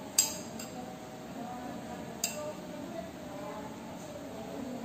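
Two sharp metallic clinks about two seconds apart, the first the louder, as grated coconut is put into a stainless steel mixer-grinder jar.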